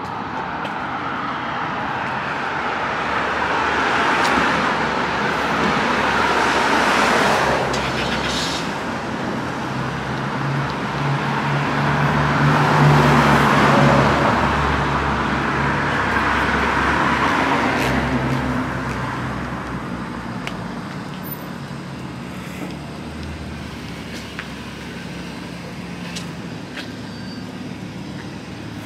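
Street traffic: cars driving past one after another, each passing swelling and fading, the loudest about halfway through, with a low engine hum under the middle stretch.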